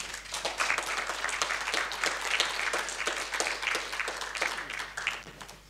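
Audience applauding, thinning out and fading away about five seconds in.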